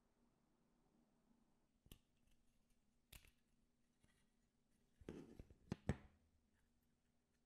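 Small clicks and taps from handling circuit boards as an Adafruit motor shield is pulled off an Arduino Uno's header pins and turned over. There are single clicks about two and three seconds in, then a quick run of louder clicks with some rubbing about five to six seconds in.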